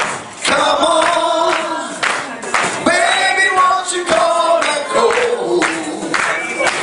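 Live blues band playing, with singing over the band.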